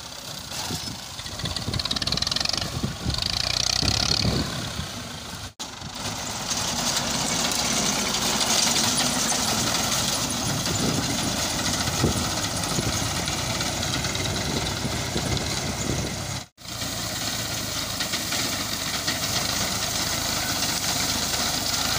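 Tractor diesel engine running as it drives a front-mounted reaper through standing wheat. The sound drops out for an instant twice.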